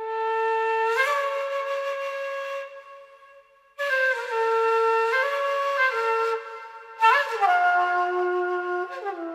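Slow flute melody in three phrases of held notes that step up and down between a few pitches, with short pauses between phrases; the last phrase settles on a lower note.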